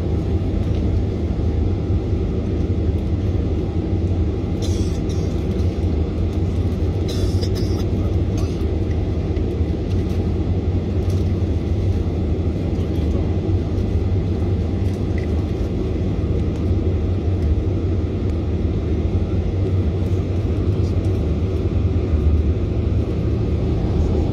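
Steady low rumble of a jet airliner heard from inside the cabin as it taxis, with a few brief faint rattles about five and seven seconds in.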